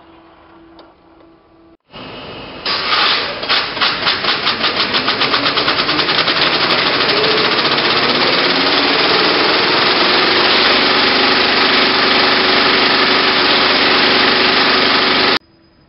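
70mm IMAX film projector starting up: a loud mechanical clatter begins about two seconds in, its pulses quickly speeding up as the machine runs up to speed, then settling into a steady loud running rush. It cuts off suddenly near the end.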